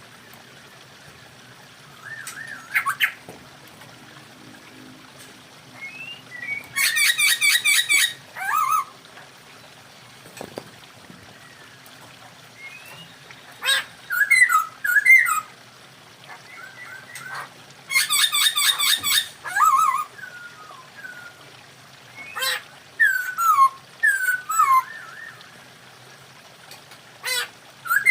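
Poksay hongkong laughingthrushes calling: short whistled, sliding notes come and go, broken twice, about seven and eighteen seconds in, by loud, harsh, rapid rattling bursts. These are the calls of birds kept as a mating pair.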